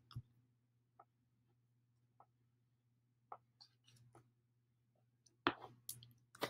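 Low steady room hum with a few faint ticks, then a short run of clicks and rustling a little over five seconds in as a sheet of paper and a crayon are handled on a desk.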